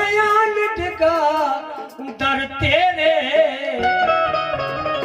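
Live Punjabi folk music: a man singing long, wavering, ornamented lines into a microphone over a plucked one-string tumbi.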